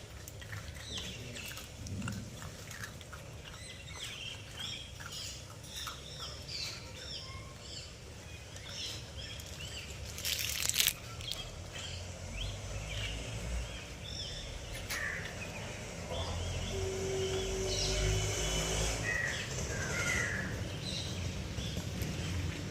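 A litter of puppies feeding, with many short, high squeaks and whimpers. About ten seconds in there is one loud sharp noise, and a low rumble builds through the second half.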